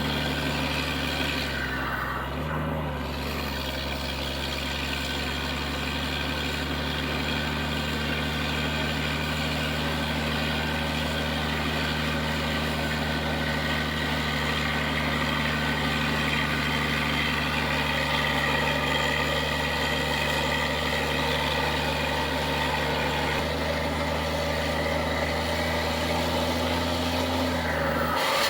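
Scania R440 truck's 13-litre straight-six diesel running steadily at idle through a straight-pipe exhaust, with a brief dip in the engine note about two seconds in.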